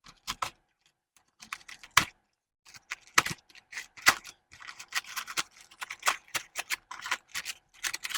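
Product packaging being opened by hand: irregular crackling and clicking of cardboard and plastic being handled, a few scattered clicks at first, then a dense run of crackles from about three seconds in.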